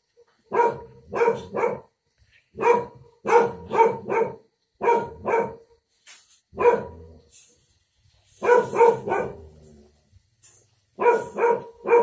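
A dog barking: short barks at a steady pitch, coming in runs of one to four with brief pauses between the runs.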